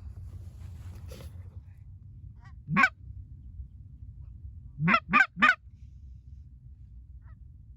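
Goose honks, loud and close: one call, then a quick run of three, each rising in pitch.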